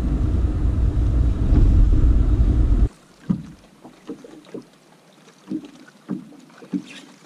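A loud low rumble that cuts off suddenly about three seconds in. It is followed by a quiet stretch with a few soft knocks and taps on a boat deck.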